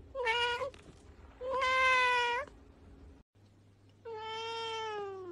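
A cat meowing three times: a short meow, a longer one about a second later, and after a pause a third long meow that falls in pitch at its end.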